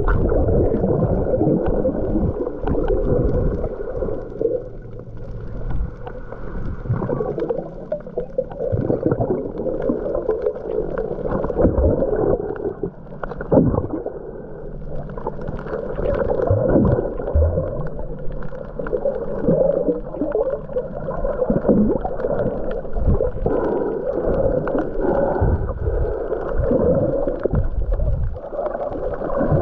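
Muffled underwater water noise picked up by a snorkeling camera in the sea: gurgling and sloshing with irregular surges and occasional knocks.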